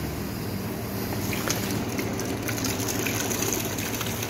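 Freshly carbonated water splashing and fizzing in a plastic bottle just filled from a bar tap, over the steady hum of the carbonator's chiller and pumps.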